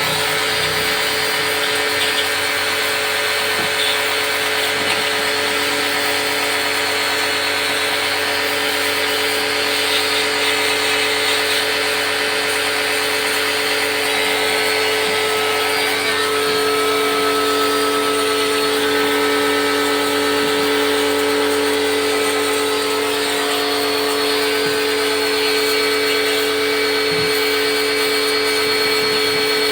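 Steady whine of an electric motor running without a break, its tone shifting slightly about halfway through.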